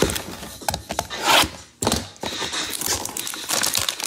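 Trading-card hanger packaging being handled and opened: scattered clicks and knocks, a loud rustling burst a little over a second in, then steady crinkling of the wrapper.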